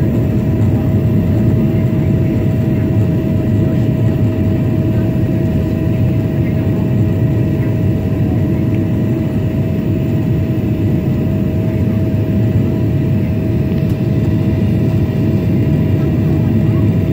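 Boeing 767-400ER cabin noise heard from a window seat behind the wing during descent with flaps extended: a steady, loud rush of airflow and jet engine noise with a constant hum held at one pitch.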